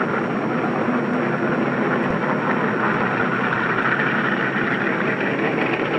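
Steady, even engine noise with no clear pitch and no breaks.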